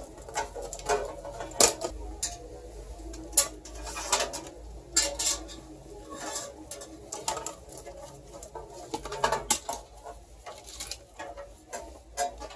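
Irregular clicks, taps and light knocks of PC parts and a computer case being handled during assembly, over a low steady hum.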